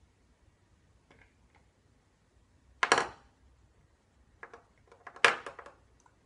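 Metal cylinders knocking against a glass tank and each other as they are handled: two sharp knocks about two and a half seconds apart, the second among a quick scatter of lighter clicks.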